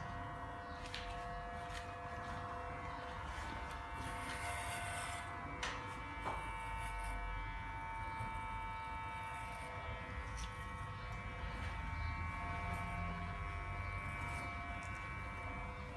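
Corded electric hair clippers running with a steady buzz, held at the back of the head during a head shave.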